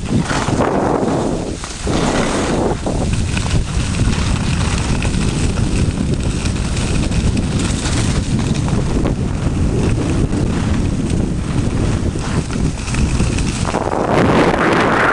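Wind buffeting the microphone of a camera carried by a skier on the run downhill, a loud steady rumble and rush that swells about two seconds before the end.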